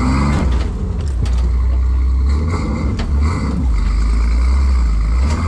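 Engine of an off-road rock crawling rig running steadily, with a few sharp knocks over it.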